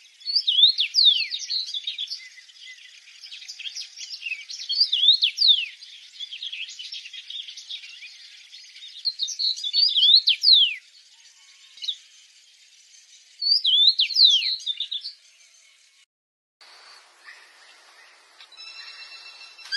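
A bird calling in four separate bouts of quick, sharply falling whistled notes a few seconds apart. It stops after about 15 seconds, and the sound cuts briefly before a fainter, different sound begins near the end.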